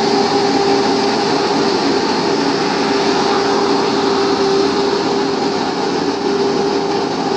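Tractor's diesel engine running at a steady speed while it drags a harrow through a flooded paddy: a constant hum over an even rushing noise.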